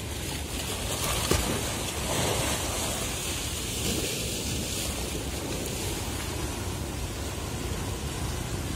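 Wind buffeting the microphone over the wash of harbour water, with a low steady rumble underneath; the hiss grows brighter for a few seconds near the start.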